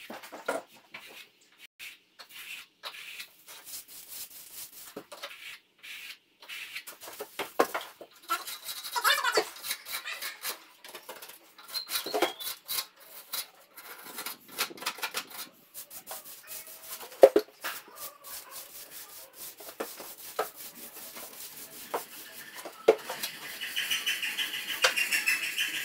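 Plasterer's steel trowel scraping and squeaking across a freshly plastered wall in irregular strokes as the surface is flattened and polished. The squeaking grows denser and higher near the end.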